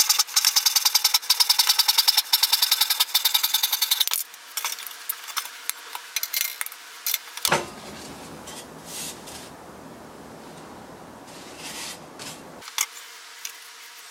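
Fast, rhythmic scraping strokes of a hand tool on spruce wood, about six a second, typical of hand sawing, filing or sanding. They stop about four seconds in, and scattered light clicks and knocks of wood being handled follow.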